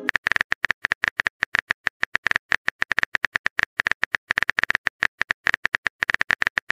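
Rapid, uneven clicks of a phone's on-screen keyboard typing sound, several a second, as a text message is typed out.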